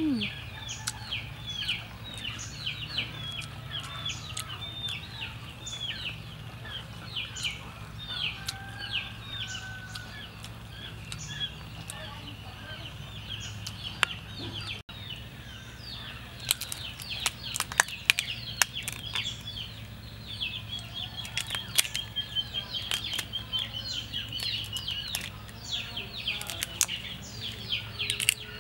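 Birds chirping over and over in short, quick calls, with sharp crackles in the second half as cooked river prawn shells are cracked and peeled by hand.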